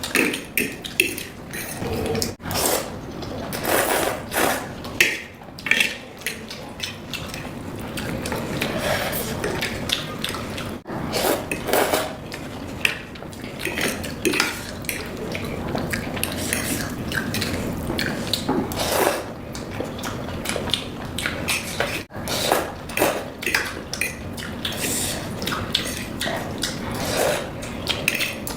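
Utensils clicking and clattering against a bowl again and again while spicy Korean ramen is eaten.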